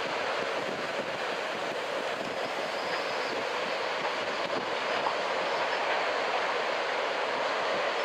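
Ocean surf breaking on a beach, a steady rushing noise mixed with strong wind.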